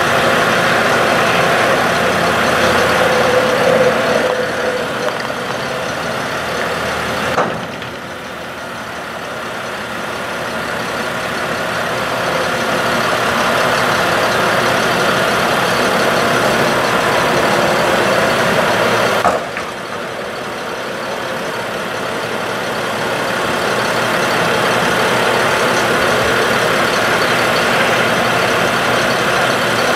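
2005 Ford F-750 bucket truck's engine running with the PTO engaged while its Lift-All boom is lowered. The sound drops suddenly twice, about 7 and 19 seconds in, and builds back up over a few seconds each time.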